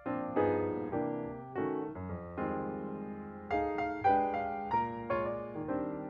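Background piano music: a melody of struck notes that ring and fade, a new note every half second or so.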